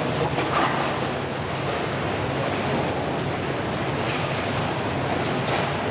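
Indoor swimming pool ambience: a steady wash of water noise, with faint splashes about half a second in and again near the end.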